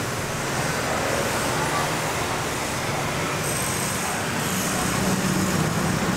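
Steady street traffic noise, with a vehicle engine hum growing a little louder about four to five seconds in.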